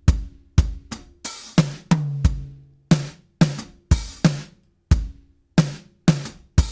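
Drum track playing back through the Waves H-Comp hybrid compressor on its Drums Punch preset (medium attack and release, ratio about 5:1): a steady pattern of kick, snare and hi-hat hits, about two a second, each with a hard attack.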